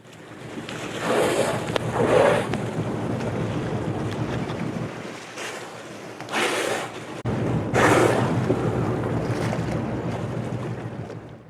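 Wind buffeting the microphone and sea water around a boat, over the low steady hum of the boat's engine. Four short rushes of noise stand out, two near the start and two past the middle.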